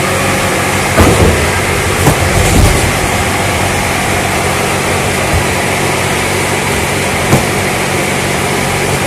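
A steady, loud machine drone, engine-like, with a few short knocks of cardboard cartons being handled, about a second in, two seconds in and once more later.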